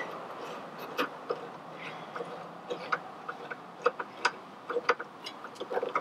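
Hand tool working a stuck, rusted Phillips screw out of a metal dash panel: scattered sharp metallic clicks and ticks, irregularly spaced, with short quick runs of clicks near the end.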